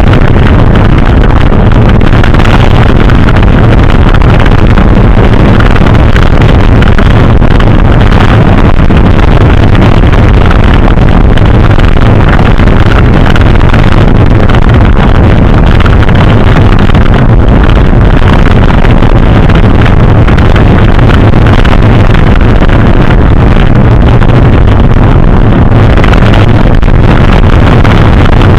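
Loud, steady wind buffeting on the camera microphone of a mountain bike being ridden fast, mixed with the rumble of the bike over the trail.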